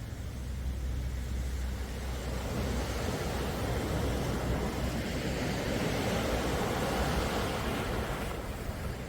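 Small waves of a calm sea washing on the shore: the hiss of the surf swells up about two seconds in and eases off near the end, over a steady low rumble.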